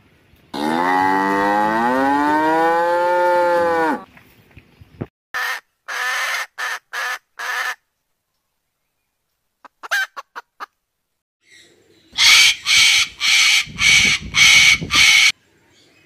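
A bovine moos once, a long call rising then falling in pitch. Then come several short bird calls, and near the end about six loud, harsh bird calls in quick succession.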